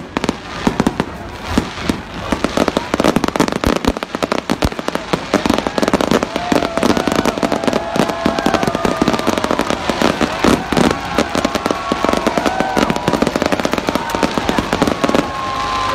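Fireworks display: a rapid, continuous barrage of crackling and popping bangs from ground-fired fountains and crackling star bursts.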